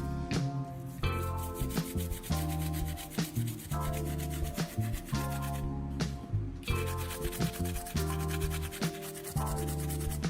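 Background music with a steady beat: held bass notes and chords changing about every second, over fast ticking percussion.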